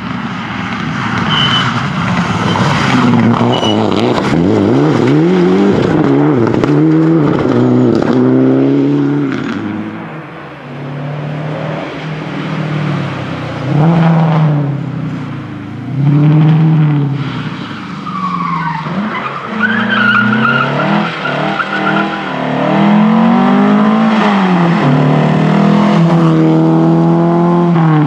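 Rally cars driven flat out on a tarmac stage, one after another. Their engines rev up and drop back again and again through gear changes and lifts, with a dip in level about ten seconds in. The first is a Mitsubishi Lancer Evolution.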